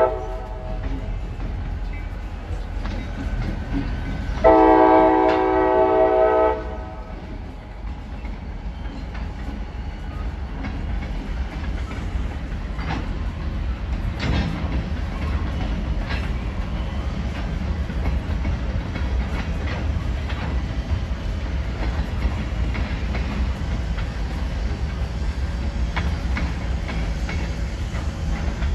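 Freight train led by diesel locomotives passing: the locomotive air horn sounds briefly at the start, then gives one loud blast of about two seconds a few seconds in. After that comes the steady low rumble of freight cars rolling by, with scattered wheel clacks.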